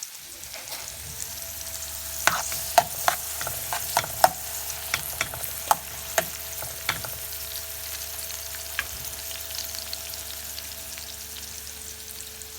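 Onions and curry leaves frying in hot oil in a pan: a steady sizzle, with a run of sharp clicks from about two seconds in that thin out after about seven seconds.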